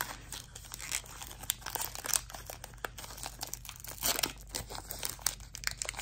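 Foil Pokémon trading-card booster pack being torn open by hand: the metallic wrapper crinkles and rips in irregular little crackles, with a few louder snaps along the way.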